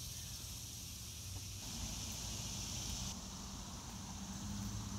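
Insects droning steadily in a high-pitched outdoor chorus, with a faint low hum underneath.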